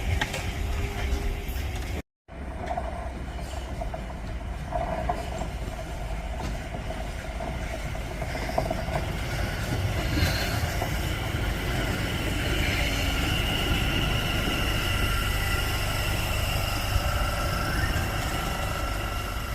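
A train running through the station: a steady rumble of wheels on rail with several held whining tones, higher-pitched ones coming in from about halfway. The sound cuts out completely for a moment about two seconds in, where the recording is cut.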